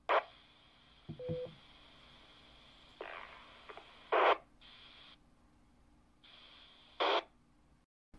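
Talkpod A36 Plus handheld ham radio's speaker giving short bursts of static, each cut off sharply as the squelch closes, four times, with a brief beep about a second in.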